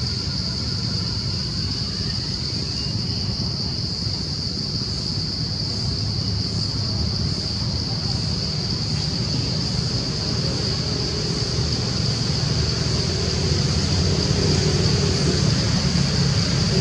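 Steady outdoor background: a constant high-pitched buzz over a low rumble, the rumble growing louder near the end.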